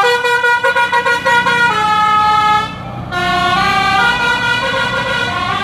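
A bus's telolet Basuri multi-tone horn playing a melody in held notes that step up and down in pitch, with the engine running underneath. The melody breaks off briefly about two and a half seconds in, then resumes with a new phrase.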